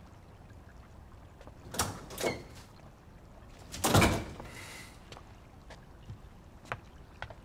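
Quiet room with a few short scraping, rustling noises, the loudest about four seconds in, followed by light footsteps.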